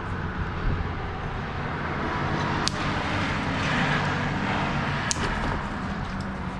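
A steady low engine hum, with a few sharp clicks and a hiss that swells in the middle.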